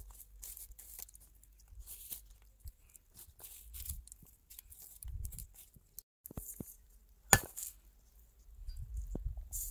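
Hand food preparation: irregular light cutting and handling sounds, with one sharp knock about seven seconds in.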